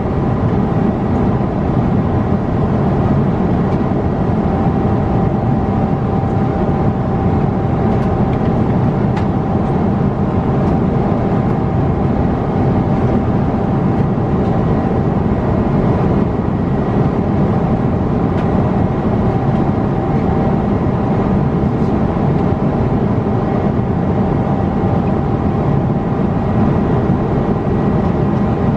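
Boeing 777 cabin noise in cruise: a steady, even rush of airflow and engine noise, heaviest in the low end, with a faint steady whine above it.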